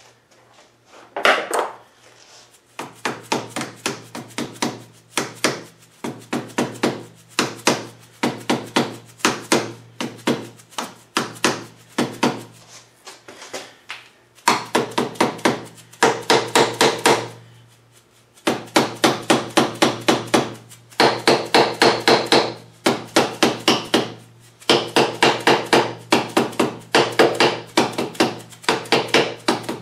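Soft-faced plastic mallet tapping a lathe compound's handwheel onto its screw shaft: quick runs of light, even blows, several a second, with short pauses between runs.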